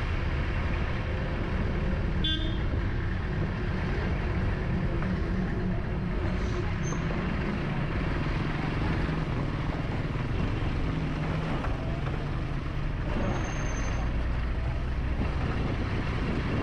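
Street traffic: car and lorry engines running, with a short horn toot about two seconds in and a deeper engine hum towards the end.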